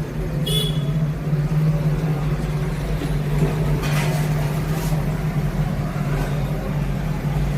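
A motor running with a steady low drone of unchanging pitch. A brief high chirp comes about half a second in, and a couple of faint clatters come around four to five seconds in.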